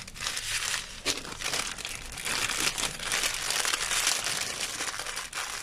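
Clear plastic bags crinkling and rustling as hands gather and shuffle a bundle of small bagged diamond painting drills, with many quick crackles throughout.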